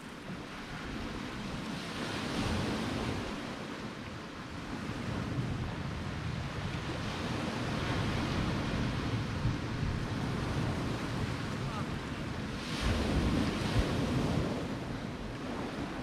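Small sea waves breaking and washing up a stony beach, swelling and fading, with one larger wave near the end, and wind buffeting the microphone.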